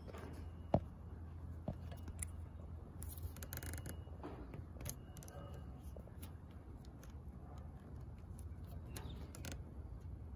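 Faint steady low hum with scattered light clicks and one sharp knock just under a second in; no engine is running.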